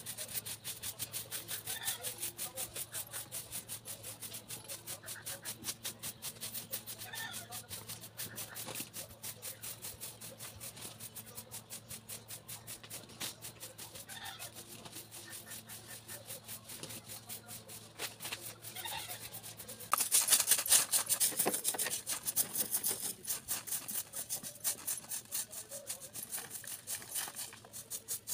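Hand broom (jhadu) sweeping a bare earth courtyard in quick, regular scratching strokes, several a second. About two-thirds of the way through the strokes become louder and closer.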